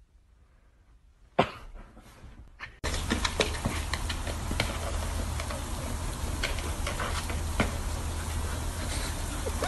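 Near silence, then a sharp knock about a second and a half in. From about three seconds in, a steady noisy outdoor background with a low rumble and frequent short taps and scrapes as a dog paws and pushes a plastic frisbee across bare dirt.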